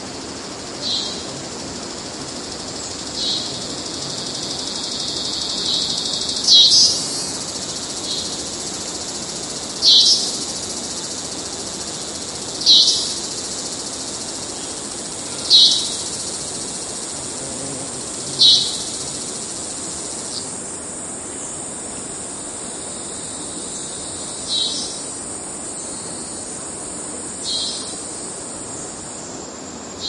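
Cicada singing, robot-like: a steady high-pitched drone broken by short, louder pulses about every three seconds.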